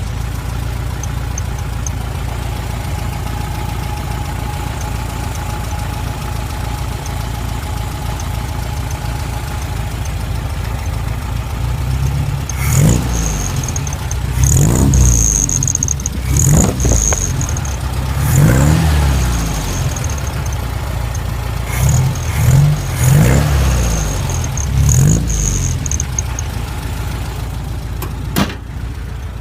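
An engine idling steadily, then revved in a series of short blips, about seven or eight, through the second half, with a high thin whine rising with each rev.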